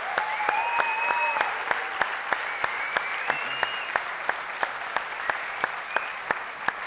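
Audience applauding, with a couple of drawn-out cheers over the clapping in the first half; the applause slowly dies down.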